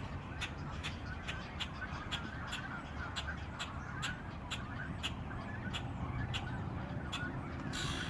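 Birds calling at a nesting colony: a short, sharp call repeats evenly about twice a second over fainter, busier chatter.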